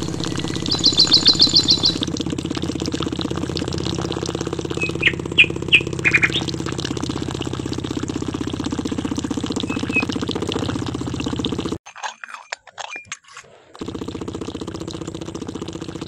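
A small DC hobby motor driving a miniature water pump runs with a steady hum. A bird trills fast near the start and chirps a few times about five seconds in. The hum stops for about two seconds partway through, then resumes.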